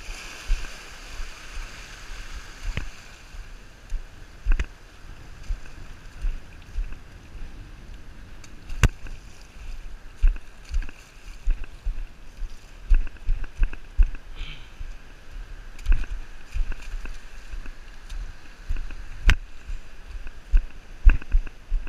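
Water sloshing and washing, with irregular low thumps and a few sharp clicks.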